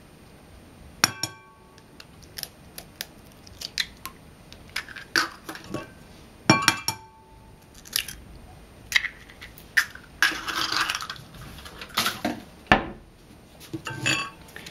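Two chicken eggs cracked against the rim of a glass bowl: each sharp tap makes the glass ring briefly, with the crackle of the shells being broken open and lighter clinks in between.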